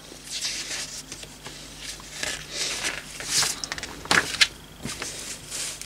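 Paper rustling and sliding as an instruction booklet is handled and its pages are turned, with a couple of light taps about four and five seconds in.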